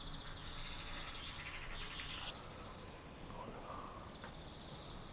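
Birds chirping over steady outdoor background noise, busiest in the first two seconds, then fainter calls.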